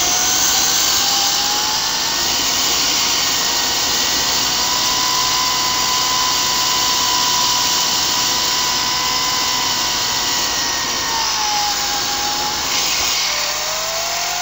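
Homemade tin-can jet turbine running on its test stand: a loud, steady rush with a whine from the spinning rotor. The whine climbs over the first two seconds, holds, drops about eleven seconds in, then climbs again near the end.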